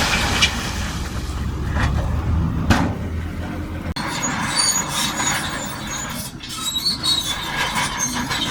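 Shantui DH17C2 crawler bulldozer working: its diesel engine runs heavily for about four seconds, then drops back, and the steel tracks squeal and clank as it moves.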